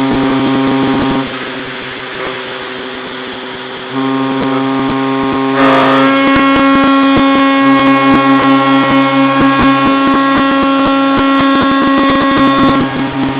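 Navy ships' typhon horns sounding long blasts. One horn cuts off about a second in; a few seconds later another starts, a second higher-pitched horn joins it, and the overlapping horns beat against each other until they stop near the end, with scattered clicks throughout.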